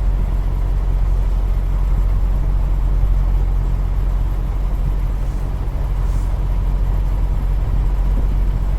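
Semi-truck engine running steadily: a loud, even low hum with no changes.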